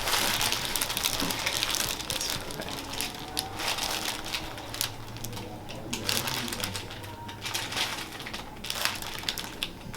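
Rustling and crinkling of movement on a chiropractic treatment table, loudest in the first couple of seconds, with scattered light clicks and taps throughout.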